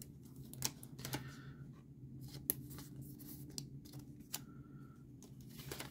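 Trading cards handled and slid into a thin plastic card sleeve: soft, scattered rustles and small clicks of card stock and plastic, over a faint steady low hum.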